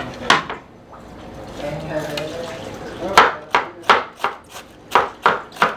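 Kitchen knife slicing through a half head of cabbage onto a wooden cutting board, shredding it in quick even strokes, about three a second, starting about three seconds in. A single knock on the board comes near the start.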